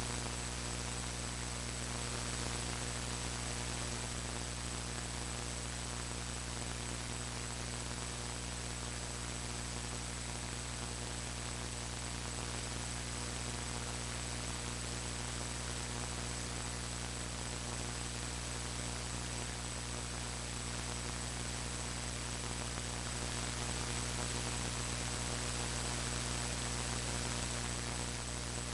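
Steady electrical hum with a hiss over it and a thin high whine: noise in the recording itself, the sound problem that the uploader flags for this video.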